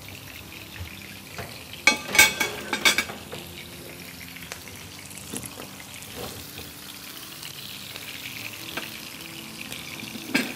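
Slab of raw rib meat searing in hot oil in a frying pan, a steady sizzle throughout. A few sharp clattering knocks come about two to three seconds in.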